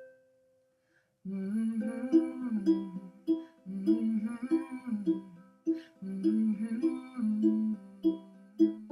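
Luna ukulele picked in a steady pattern, joined about a second in by a voice humming the melody in long, gliding notes after a brief pause.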